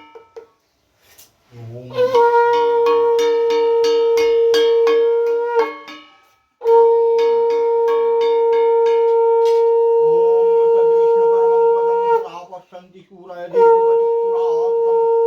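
Conch shell (shankha) blown in three long, steady blasts, the third still sounding at the end. A rapid run of short ringing strokes sounds along with the first two blasts.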